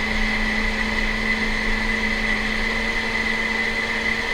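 Kitchen blender running steadily at one constant speed, blending chopped tomatoes, onion, garlic and water into a salsa.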